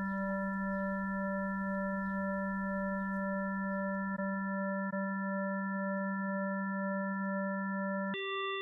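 Max/MSP additive-synthesis patch: a sine oscillator at 196 Hz (G3) with quieter added harmonics, holding one steady electronic tone that sounds full and rich. Two brief clicks come about four and five seconds in, and near the end the tone jumps up an octave to 392 Hz.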